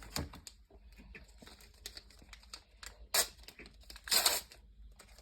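Wrapper of a trading-card pack being torn open and crinkled: small rustles and clicks, with two louder, short rips about three and four seconds in.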